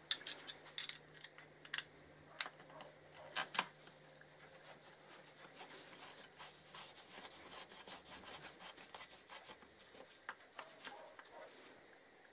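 Screwdriver turning screws into an aluminium motorcycle engine crankcase, faint. There are a few sharp metal clicks and taps in the first few seconds, then a run of small rapid clicks and scrapes as the screw is turned.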